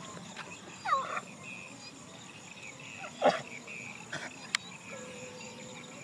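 Two short falling animal calls, about a second and about three seconds in, the second the loudest, over a steady high insect hum, with a few light clicks after the second call.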